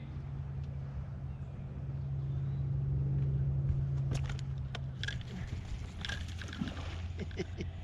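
Electric trolling motor humming steadily, louder for a moment about three seconds in, with a series of sharp clicks and knocks in the second half.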